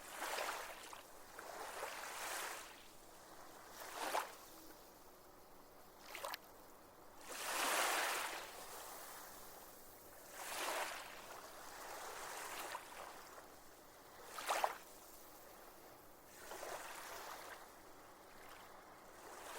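Small waves washing in and breaking on a reef shoreline, the surf noise swelling and fading every two to three seconds.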